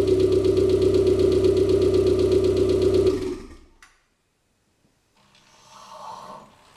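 Mitsubishi 4G93T turbo four-cylinder engine idling evenly after a rebuild, then switched off about three seconds in and running down to silence within a second. A faint handling noise follows near the end.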